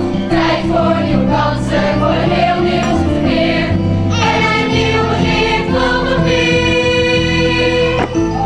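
A musical-theatre cast singing together as a choir over instrumental accompaniment, settling into long held notes in the second half.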